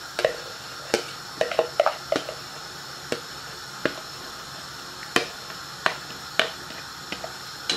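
Pot of coconut milk, water and pigeon peas at the boil: bubbles bursting in sharp, irregular pops, roughly one a second, over a faint steady hiss.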